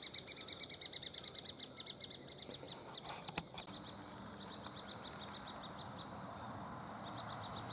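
White-plumed honeyeater calling: a fast run of short, even, high notes, about eight a second, loud for the first three seconds and then fainter but still going. A couple of sharp clicks come about three seconds in.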